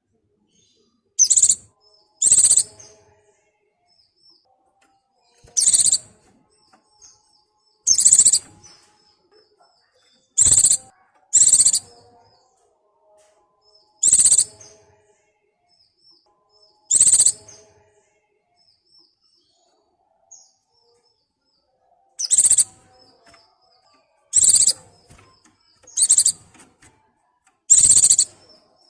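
White-eye (pleci) calling: about a dozen short, loud, high-pitched calls at irregular gaps of one to five seconds, with soft twittering between them. A bird in breeding condition calling for a mate.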